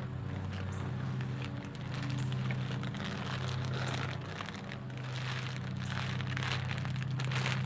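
Plastic sleeves crinkling and rustling as new fishing rods wrapped in plastic are pulled out of a cardboard shipping tube and handled, over a steady low hum.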